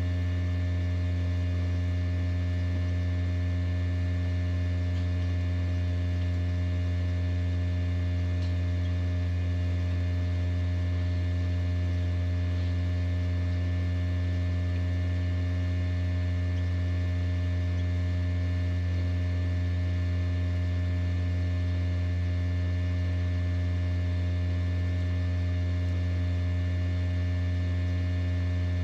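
Egg incubator running with a steady low electrical hum, with fainter fixed higher tones above it.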